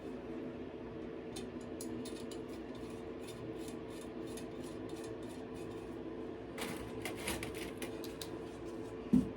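Light metallic clicks and clinks of steel bicycle spokes tapping against each other, the hub and the rim as they are threaded into a front wheel during lacing, with a cluster of clicks near the end. A steady low hum runs underneath.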